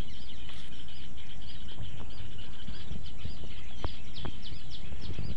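Many small birds chirping in a steady chorus of short repeated calls, over a steady low background rumble, with a few faint clicks.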